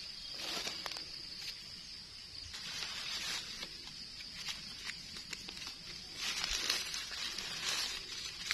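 Dry leaves rustling and crackling with small irregular clicks as a knife scrapes and trims the stems of freshly picked wild mushrooms, over a steady high-pitched drone.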